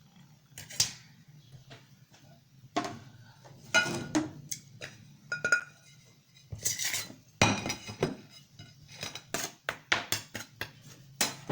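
Kitchenware handled on a work surface: irregular clinks and knocks of utensils and dishes, some with a brief metallic or glassy ring.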